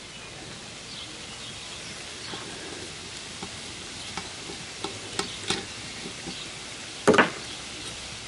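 Scattered small metallic clicks and scrapes from a socket, bolts and small parts being handled by hand in the jointer's metal base, with one louder metal clatter about seven seconds in.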